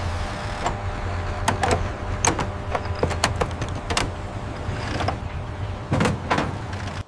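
Toy-truck scene sound effects: a steady low truck-engine rumble with a series of sharp clicks and clanks scattered through it.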